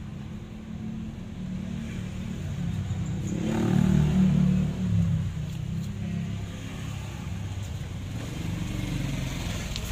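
Low engine rumble of a running motor vehicle, swelling to its loudest about three and a half to five seconds in, then settling back.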